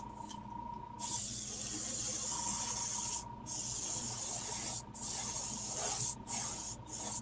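Airbrush spraying paint onto a fishing lure: a high air hiss that starts about a second in and goes in five bursts, the first about two seconds long, with short breaks between.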